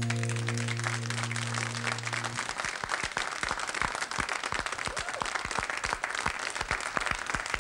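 Studio audience applauding, with many hands clapping. The band's final held chord rings under the applause and stops about two and a half seconds in.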